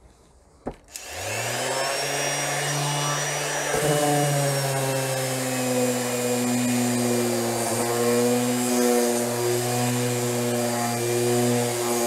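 Parkside PEXS 270 C3 random orbital sander switched on about a second in, spinning up, then running steadily at speed setting 4 with a low hum and a high whine. It is sanding a mahogany door with 120-grit paper.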